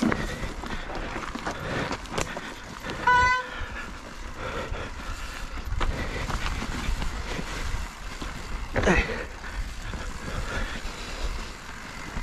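Mountain bike riding down a rough trail: tyre rumble and rattling throughout, with a short horn-like tone about three seconds in and a brief shout near nine seconds.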